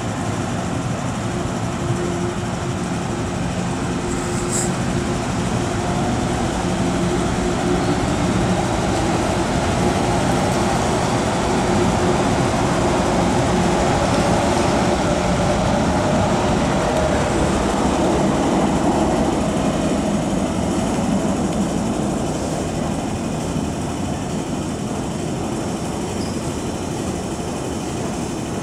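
MTR Kwun Tong Line M-Train running through the station without stopping, behind platform screen doors: a steady hum over wheel-on-rail rumble. The rumble swells past the middle and then slowly fades as the train runs on into the tunnel.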